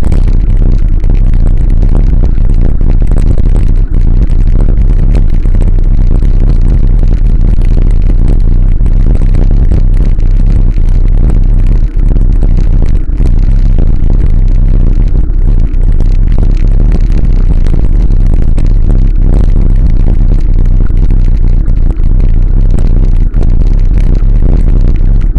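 Loud, steady wind rumble on the microphone of a camera mounted on a moving bicycle, with road vibration, and a few brief dips in level.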